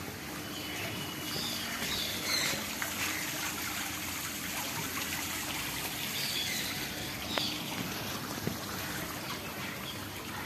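Water trickling steadily in a small garden fountain.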